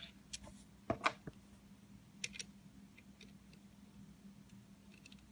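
A few light plastic clicks from a Kamen Rider Ex-Aid Gashat toy being handled in the hand: two about a second in, two more a little after two seconds, and a faint one just before the end.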